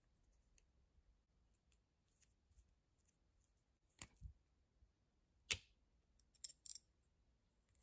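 A few faint clicks and taps of small metal starter-motor parts being handled, as the battery post and its washers are worked out of the brush holder plate: a pair of clicks about four seconds in, a sharper one at about five and a half seconds, and a quick cluster a second later. Otherwise near silence.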